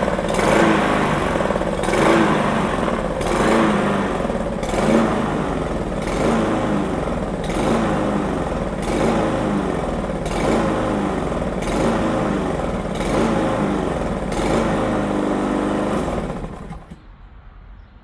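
Petrol lawn mower engine running, its pitch and loudness rising and falling in a regular cycle about every second and a half, then cutting out near the end.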